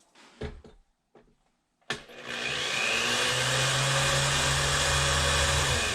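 An electric motor-driven machine switches on suddenly about two seconds in and runs steadily with a low hum under a loud even rushing noise.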